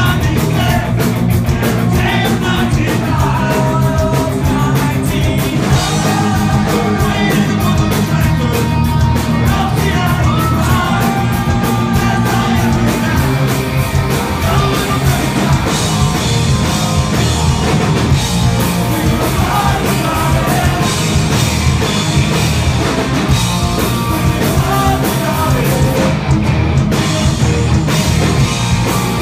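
Punk rock band playing live: distorted electric guitars, bass and drums with a man singing lead, loud and continuous.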